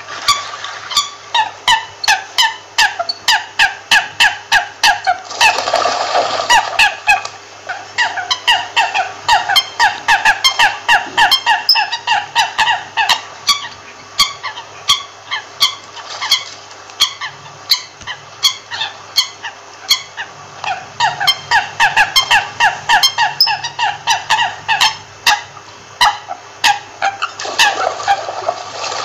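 American coots calling: a rapid run of short, repeated call notes, several a second, with fewer calls for a few seconds in the middle. A brief rush of noise stands out about six seconds in and again near the end, over a faint steady hum.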